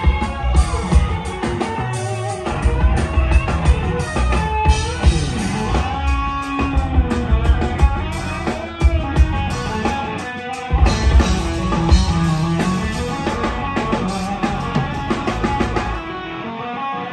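Live rock band playing loud, with an electric guitar leading in bent notes over drums and bass. The drums and bass drop out for a moment near the end.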